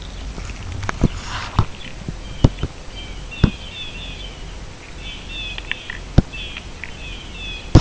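Sharp knocks of plastic sand toys and a metal spoon on a wooden picnic table, about seven in all, the loudest near the end. Small birds chirp in quick repeated notes through the middle.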